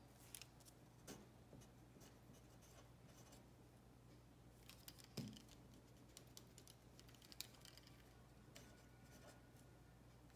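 Faint scratching strokes of handwriting, with a few light taps and a soft knock about five seconds in, over a steady low hum.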